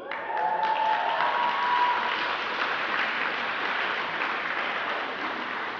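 A large audience of students clapping, with a few whoops in the first second or two, the applause peaking early and then easing slightly.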